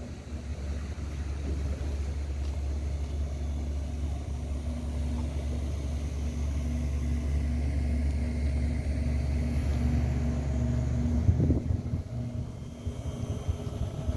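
A boat's engine running with a low, steady drone that eases off near the end, with a brief bump of wind on the microphone shortly before.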